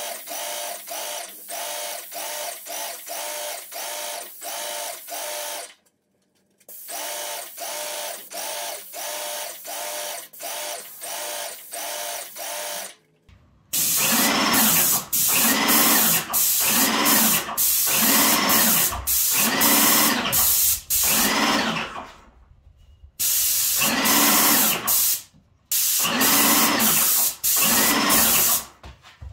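Wagner Control Pro 250R airless paint sprayer running while paint is sprayed onto block walls: its pump pulses rhythmically under the hiss of the spray. The pulsing runs about two beats a second, then grows louder and slower, about one a second, and stops briefly a few times as the trigger is let go.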